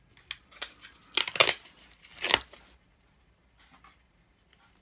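Plastic packaging of a Scentsy wax bar being cracked and peeled open: a run of sharp crinkling rustles, loudest about a second and a half in and again just after two seconds, then a faint sniff near the end.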